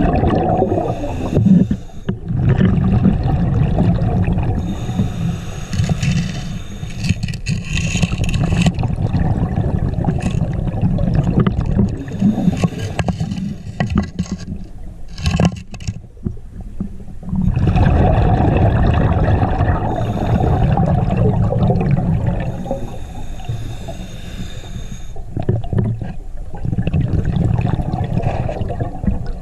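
Muffled underwater noise with a steady low rumble of moving water. Bubbling surges come and go over several seconds at a time, and fade to a lull about halfway through.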